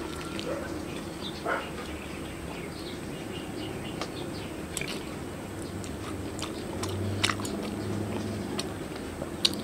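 Close-up mouth sounds of a person eating chewy spicy instant noodles: drawing strands in and chewing, with many short wet clicks and smacks.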